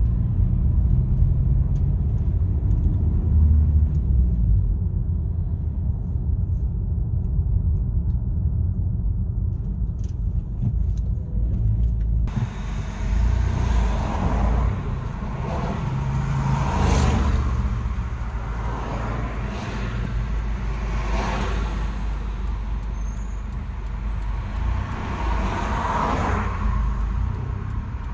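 Car driving, with a steady low road-and-engine rumble. About twelve seconds in the sound suddenly opens up into tyre hiss, and several passing vehicles swell and fade.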